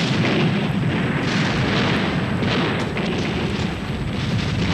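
Naval gunfire during a night sea battle: a steady heavy rumble of guns and explosions with faint crackling, no single shot standing out.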